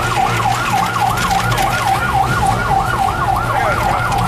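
Ambulance siren sounding in a fast yelp, its pitch rising and falling about four times a second, over a steady low hum.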